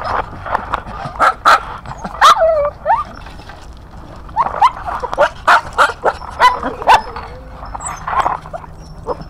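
Several small dogs yapping in short, sharp barks mixed with whines, in quick bursts with a lull of about a second just before the middle.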